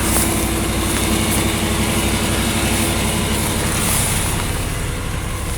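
1989 Chevrolet Caprice engine idling steadily.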